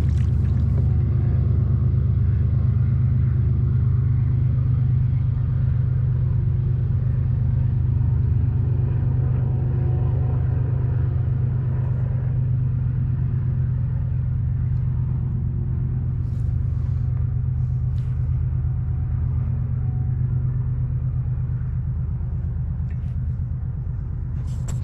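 Steady low engine and road drone of a moving vehicle, heard from inside, at an even pace throughout with no clear gear changes.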